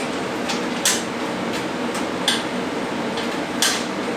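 Sharp, light metallic ticks, three louder ones roughly a second and a half apart and a few fainter ones between, over a steady background hum.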